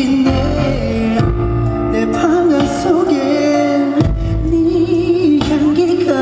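Live pop song: a male singer's voice carrying a held, bending melody over band accompaniment.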